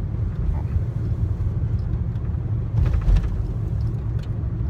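Steady road and engine rumble inside a moving vehicle's cabin, with a brief louder thump about three seconds in.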